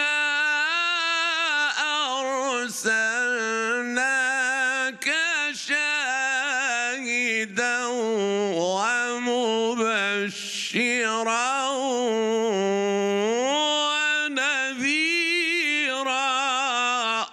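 A male Quran reciter chanting in the melodic Egyptian mujawwad style: one long, ornamented phrase, the voice wavering and turning through quick trills, sliding up in pitch about two-thirds of the way through and settling lower before it stops.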